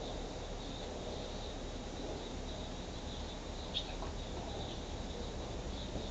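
Insect chirping in the background: a steady high trill at one pitch, with a single light click a little under four seconds in.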